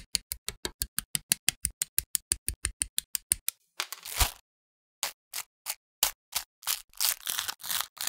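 Plastic model-kit handling: a fast, even run of sharp clicks for about three seconds, then a short rustle ending in a knock. Slower clicks follow, and near the end there are crinkly snips of scissors cutting a clear plastic parts bag.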